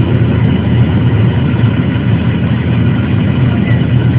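Steady, loud engine drone of a small aircraft in flight, heard from inside the cabin.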